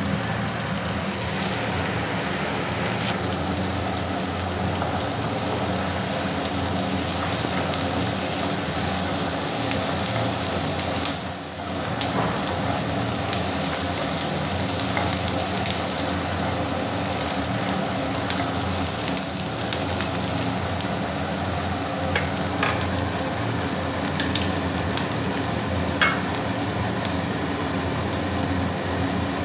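Peanuts, onion and green chilli frying in oil in a nonstick wok: a steady sizzle as a spatula stirs them. The sizzle drops out briefly about halfway through, and a few sharp clicks of the spatula against the pan come near the end.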